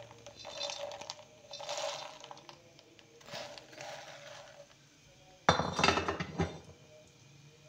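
Silicone spatula stirring puffed lotus seeds (makhana) around a non-stick pan in ghee: soft scrapes and light rattling, with a louder clatter about five and a half seconds in.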